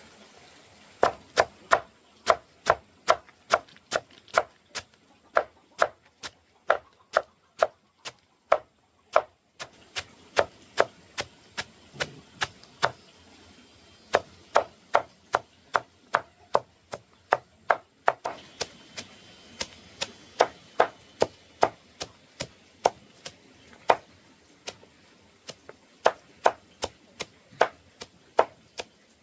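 Steady, rhythmic chopping with a knife on a cutting board, about two sharp strikes a second, with a couple of brief breaks.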